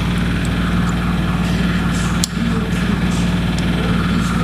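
Yamaha R1-Z 250's two-stroke parallel-twin engine idling steadily.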